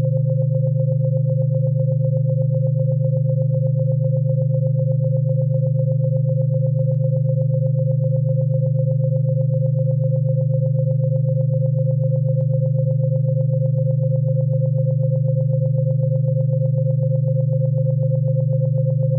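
Steady synthesizer drone: a low buzzing hum with a clear higher tone above it and a fast, even flutter, unchanging throughout.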